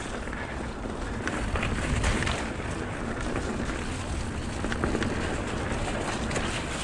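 Mountain bike rolling fast along a dirt forest trail: tyre rumble and wind buffeting a GoPro Hero 7 Black's microphone, with scattered clicks and rattles from the bike.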